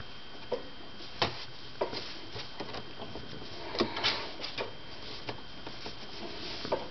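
Handmade duct-tape anklet being handled and fastened around a socked ankle: irregular soft clicks and rustles, the sharpest about a second in and around four seconds in, over a steady background hiss.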